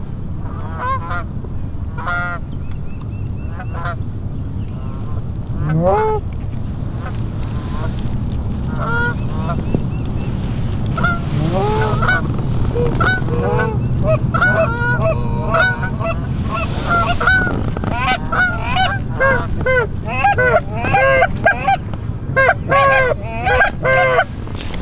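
Goose honking: scattered short honks at first, growing into a dense, loud chorus of overlapping honks near the end as the flock closes in. A steady low rumble runs underneath.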